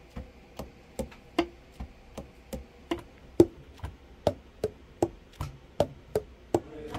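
Selmer Mark VI tenor saxophone keys pressed and released over and over, the pads tapping shut on the tone holes in an even series of clicks, about two or three a second. The pads close snugly, a sign of good seating in a leak test after the overhaul.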